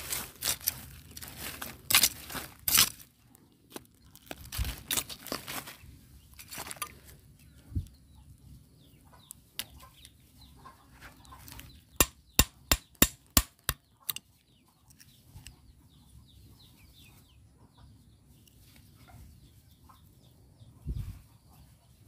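Digging and scraping through soil and old rubbish with a metal hand tool: irregular scrapes and knocks, busiest in the first few seconds, and a quick run of about eight sharp knocks around twelve seconds in. Hens clucking in the background.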